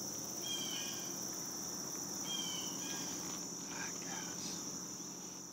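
Steady high-pitched chorus of crickets and other insects in the woods before daylight, with a couple of short high chirps about half a second and two seconds in.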